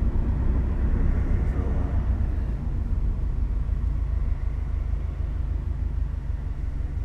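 Low rumble of road and engine noise inside a car's cabin, the tyre hiss fading after a couple of seconds as the car slows to a stop behind traffic.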